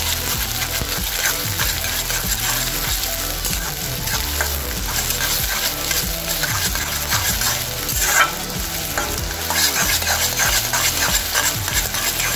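Chopped capsicum, onion and carrot sizzling in hot oil in a kadai on high flame, while a spatula scrapes and tosses them around the pan; one louder clatter about eight seconds in.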